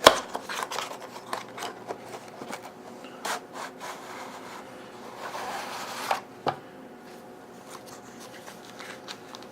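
Knife packaging being handled and opened by hand: rubbing and scraping with scattered clicks, a sharp click at the start and a longer scrape about five seconds in.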